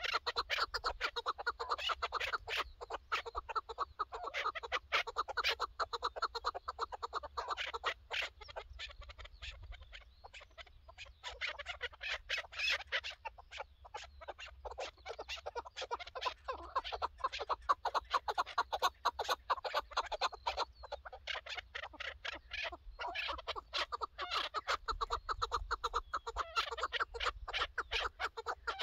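Chukar partridges calling: long runs of rapid, repeated short chuck notes, easing off briefly about ten seconds in and again a little past twenty seconds.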